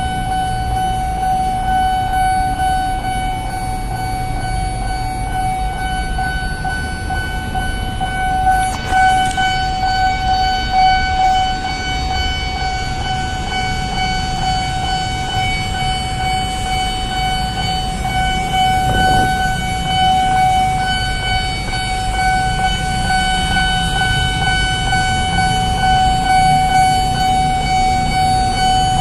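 Railway level-crossing warning alarm sounding one steady, unbroken electronic tone, the signal that a train is approaching, with a low rumble beneath it.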